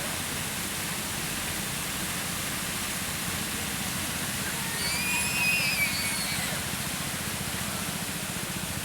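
Fountain water splashing steadily into its basin, an even, constant rush. About five seconds in, a brief high-pitched call rises and falls above it.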